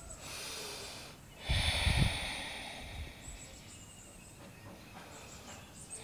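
A person breathing close to the microphone: a soft breath in, then a louder breath out about one and a half seconds in. Faint high-pitched chirps follow.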